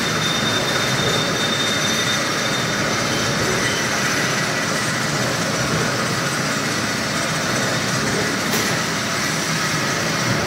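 Steady din of a machine shop with CNC lathes running. A thin high whine shows in the first couple of seconds and a light click or two near the end.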